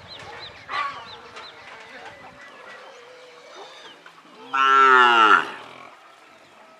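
A cow moos once, a single loud call about a second long that falls in pitch, about four and a half seconds in. Small bird chirps come near the start.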